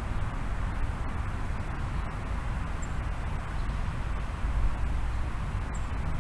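Steady outdoor background noise: a constant low rumble with a hiss above it, and two faint, brief high chirps about three and six seconds in.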